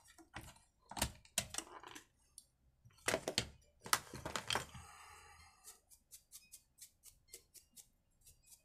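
Knocks and clicks of plastic and metal parts as the carburetor is lifted out of an Oleo-Mac 937 chainsaw and handled, followed near the end by a run of light ticks, about four a second.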